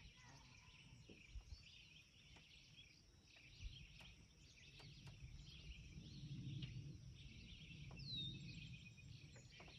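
Near silence: faint outdoor ambience with distant birds chirping, and a soft low rumble partway through.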